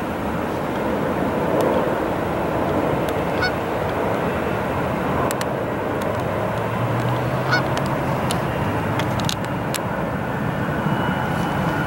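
Airbus A380's Rolls-Royce Trent 900 jet engines running steadily as the airliner lands, with a low hum coming in just after touchdown, about six seconds in.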